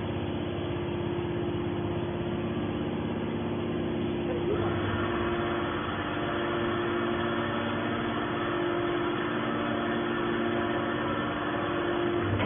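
Hydraulic can baler's motor and pump running with a steady hum; the sound grows fuller about four and a half seconds in.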